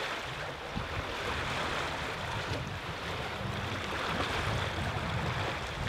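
Steady wash of choppy sea water around a sailing catamaran, with wind buffeting the microphone.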